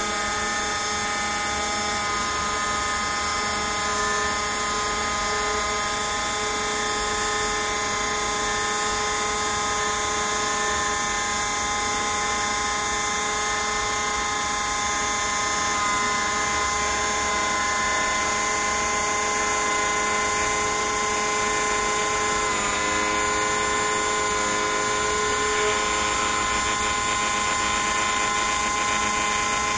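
CNC router spindle running steadily as its bit carves a relief into a block, a steady whine made of several tones. The tones shift slightly about two-thirds of the way through.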